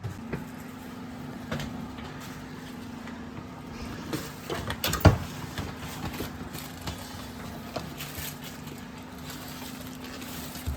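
A steady low hum with scattered clicks and knocks, and one loud knock about five seconds in.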